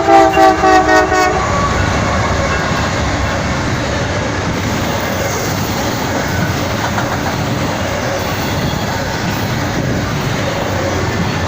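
Norfolk Southern intermodal freight train: its air horn sounds several notes at once in a pulsing blast that cuts off about a second in, then the steady rumble and rattle of the train rolling past.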